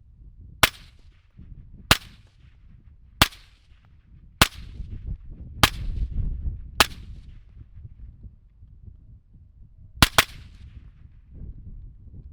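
Suppressed 5.56 rifle shots through an Otter Creek Labs OCM5 suppressor: six evenly spaced shots about a second and a quarter apart, each with a short ringing tail, then two shots in quick succession near the end.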